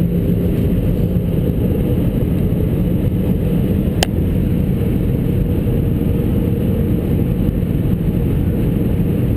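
Steady cabin noise of an Airbus A320-family airliner on approach, heard inside the cabin: the jet engines and rushing air as a low, even rumble. A brief click about four seconds in.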